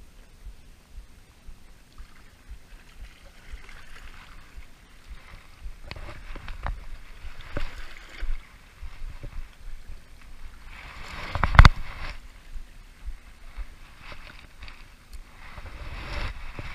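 Crunching and knocking on loose, fist-sized shoreline rocks, coming in short scrambles of a second or two, with one loud sharp knock about two-thirds of the way through.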